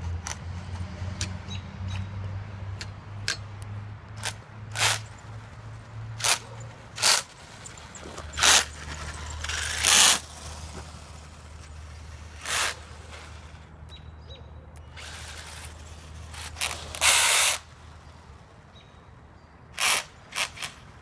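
Axial Yeti 1/10-scale RC truck making a grinding sound in repeated short bursts, two of them longer, over a low steady hum.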